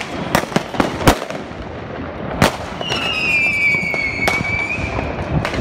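Fireworks and firecrackers going off around a street, heard as a series of sharp separate bangs, the loudest just over a second in. A whistling firework gives a long whistle that falls slowly in pitch, starting about three seconds in.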